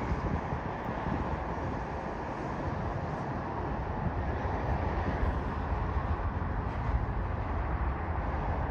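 Aircraft engine noise: a steady rumble with no clear pitch, with gusty low-end buffeting on the microphone.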